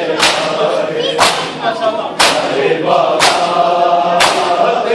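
Crowd of mourners doing matam, beating their chests in unison about once a second, over a group of men chanting a nauha.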